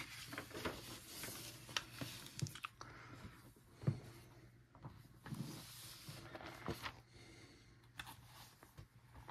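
Coloring book pages being turned and the book closed and handled: soft paper rustling with scattered light knocks and taps.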